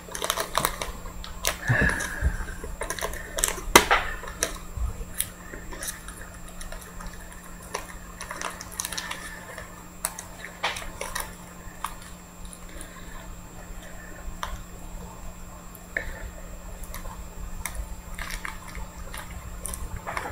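Thin plastic rustling with small scattered clicks, as a trading card is worked into a clear plastic sleeve by hand, busiest in the first few seconds, over a faint steady low hum.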